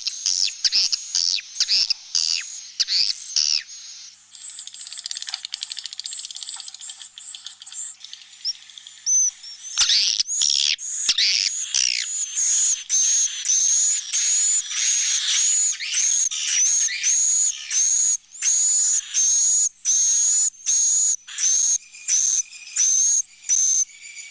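Swiftlet roosting-call recording, the kind played inside a swiftlet house: many high chirps and twitters, a buzzy chatter partway through, then a steady run of repeated chirps about two a second.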